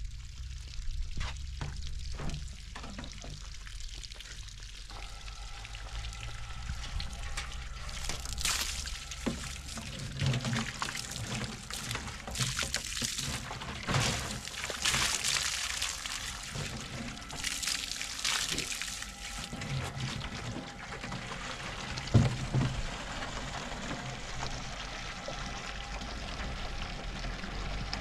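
A few footsteps on stony ground, then water from a hose pouring into a plastic jerrycan as it fills, with a steady hiss that surges louder at times.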